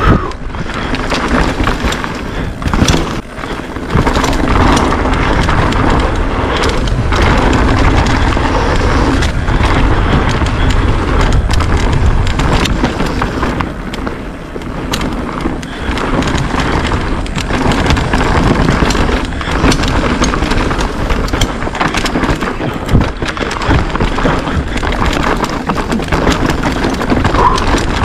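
Mountain bike descending a rough downhill track at speed: wind rushing over the microphone, tyres running over dirt and rock, and the bike knocking and rattling over the bumps.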